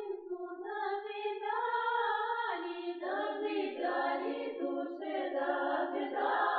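Russian folk Maslenitsa (Shrovetide) song sung unaccompanied, in a folklore field recording: a single voice leads in long held notes, and a chorus joins about two and a half seconds in.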